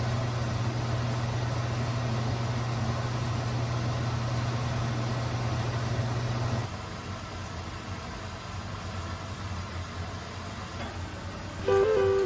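A steady low mechanical hum with a noise haze, heard over a wok of noodles simmering on a gas stove. The hum drops away about halfway through, leaving a quieter background.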